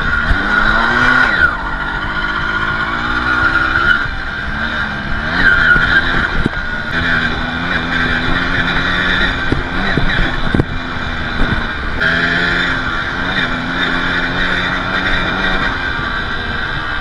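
Balkan 50's small two-stroke engine running while the bike is ridden, its note rising and falling as the throttle is worked, with a few short knocks along the way.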